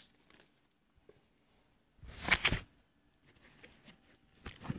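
Handling noise as the phone is moved: a faint click, then a loud short rustle or scrape about two seconds in, with a couple of small clicks near the end.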